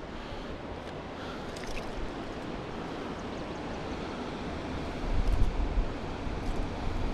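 Steady rush of water pouring through a dam spillway. From about five seconds in, low wind buffeting on the microphone gets louder on top of it.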